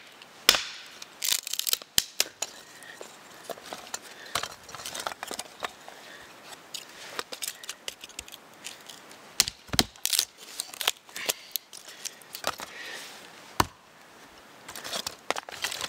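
Fixed-blade knife striking down into small sticks laid on a log, splitting them into kindling: an irregular run of sharp wooden knocks and splitting cracks.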